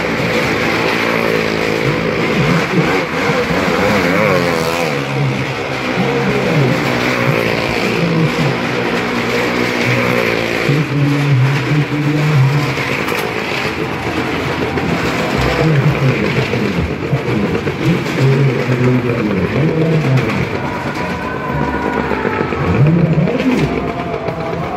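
Engines of stunt vehicles riding round the wall of a well-of-death (maut ka kuan) drum, running hard and continuously, their pitch rising and falling over and over as they circle.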